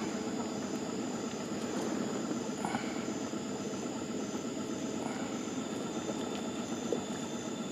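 Boat motor running steadily at a low idle, an even rumble with no change in speed.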